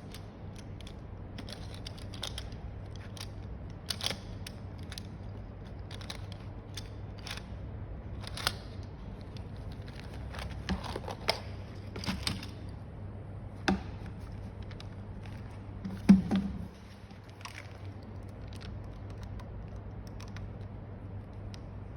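Scattered clicks, scrapes and rustles as an item and its packaging are handled during unboxing, over a steady low hum. The loudest sound is a knock about sixteen seconds in, and the hum stops just after it.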